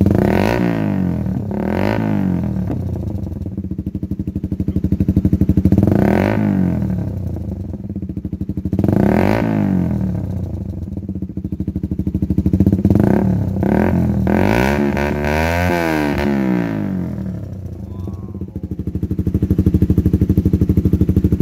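Suzuki GSX-R150's 150 cc single-cylinder four-stroke engine through a CLD X Monster aftermarket exhaust with the DB killer removed, revved repeatedly in short throttle blips and dropping back to idle between. Near the middle comes a quicker string of blips.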